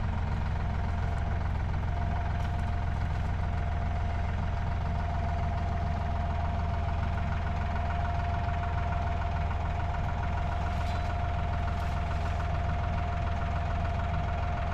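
An engine running steadily at constant speed, a low hum with a thin steady whine above it that grows stronger about two seconds in.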